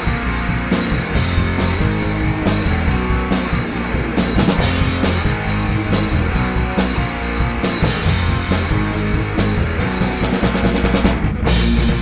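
Live rock band playing: electric guitar, bass guitar and drum kit together at full volume with a steady beat, with a brief dip in the high end about eleven seconds in before the band comes back in full.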